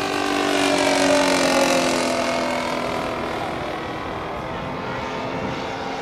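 Radio-controlled scale model airplane's piston engine running as the model flies past, loudest about a second in, its pitch sinking slowly as it goes by.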